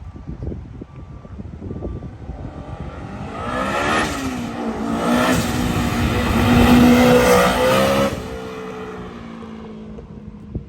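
Honda S2000 with an aftermarket dual cat-back exhaust accelerating hard past, its engine note climbing, with a brief dip about four seconds in. The note cuts off sharply about eight seconds in on lifting off the throttle, leaving a lower note that fades.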